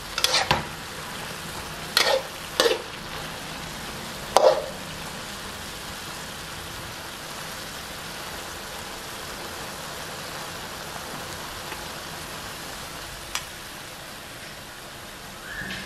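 Kale and pork stir-frying in a steel wok. A metal spatula scrapes and clanks against the wok about four times in the first few seconds, then the food sizzles steadily.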